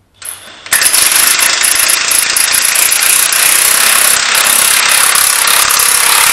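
Cordless DeWalt impact wrench hammering steadily for about six seconds, starting about a second in after a brief blip. It is driving a tensioning bolt through a 1 1/8-inch socket to compress the spring that tensions a mower's rubber track.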